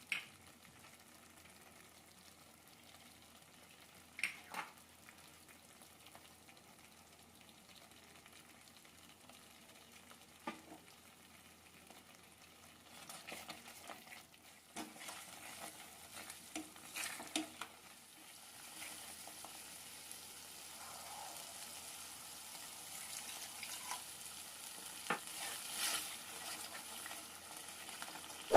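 Curry masala frying in a pan, stirred and scraped with a spoon. After a few light clinks in a mostly quiet first half, the stirring strokes start about halfway through and a sizzling hiss builds toward the end.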